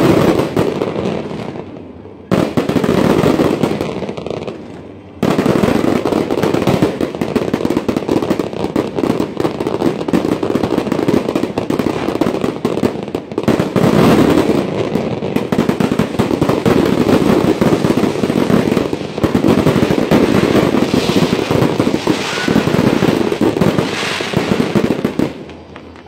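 Fireworks barrage of crackling aerial shells, a dense continuous crackle of many small reports. It drops away briefly twice in the first five seconds, surges back, and dies down near the end.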